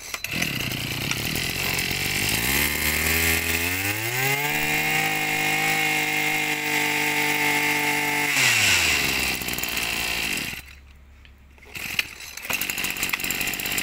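Small two-stroke engine of a Maruyama 23cc brush cutter idling, then revved up to full throttle and held there for about four seconds before dropping back to idle. It goes quiet for about a second near the end.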